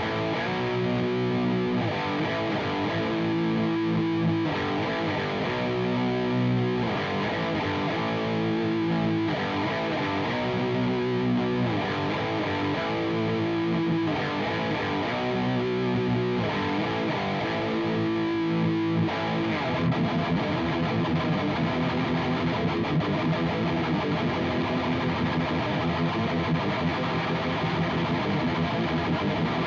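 Electric guitar through a JOYO Dark Flame high-gain distortion pedal, a Revv G3 clone: distorted chords held and changed every couple of seconds, switching about two-thirds through to a fast, tightly picked rhythm riff.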